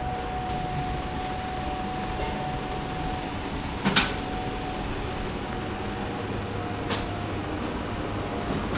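Steady background hum carrying a thin steady tone, broken by two sharp knocks about three seconds apart. The first knock is the louder.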